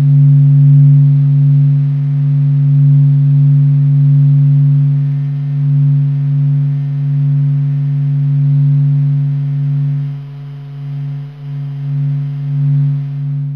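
Steady low electronic hum with faint overtones, swelling and easing slightly in loudness: solar-wind plasma waves recorded by Voyager and converted to sound, a distant, soothing hum.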